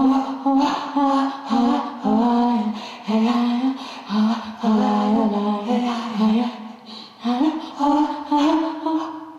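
A woman singing a slow melody in short held phrases of about a second each, with brief pauses between them.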